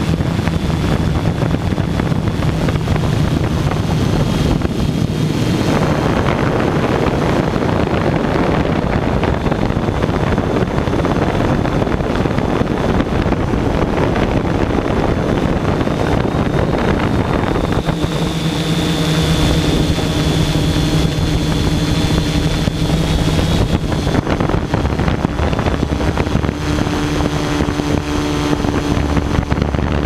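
Hexacopter's electric motors and propellers buzzing in flight, heard from the camera on board, with a steady low hum that fades and comes back as the motor speed shifts. Wind buffets the microphone throughout.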